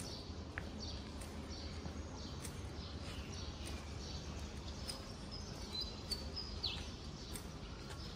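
Birds chirping in trees, a run of short falling chirps with a few louder calls near the end, over a steady low background hum.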